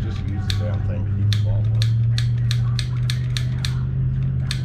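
Piezo igniter of a hand-held propane torch clicking repeatedly as it is being lit, about three sharp clicks a second, stopping near the end. A steady low hum runs underneath.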